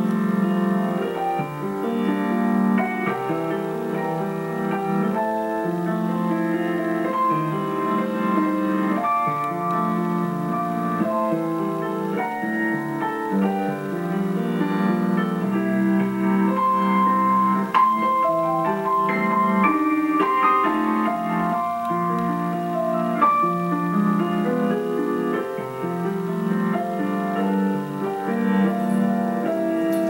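Grand piano played solo, with chords and a melody running on without a break.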